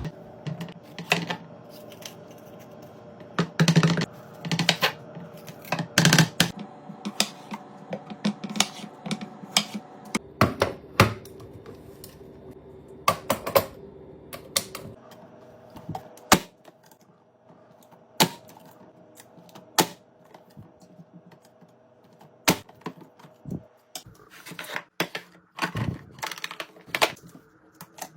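Irregular clicks, taps and knocks of plastic and glass containers and packages being set down and slotted into a refrigerator, over a faint steady hum.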